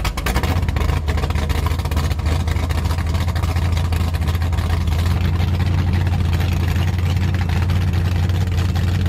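Motorboat engine idling steadily with a deep, even rumble.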